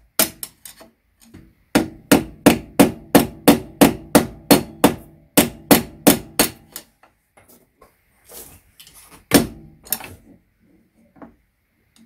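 Hammer striking a screwdriver used as a drift, knocking the notched upper steering-head bearing race out of a BMW F800GS frame from below. Sharp metallic blows come in a steady run of about three a second for several seconds. After a pause with light clinking, there is one hard blow near the end.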